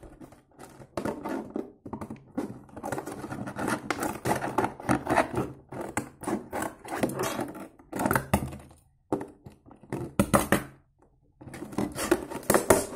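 Scissors cutting into a crinkly plastic doll package, the plastic crackling and rustling as it is handled, with a few knocks against the table and two short pauses.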